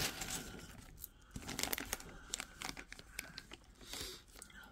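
Clear plastic bag crinkling and rustling as it is handled, with many small sharp crackles.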